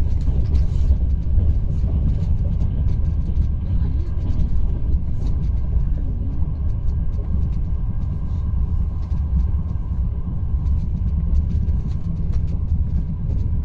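Steady low rumble of a moving train heard from inside the carriage, with faint scattered clicks.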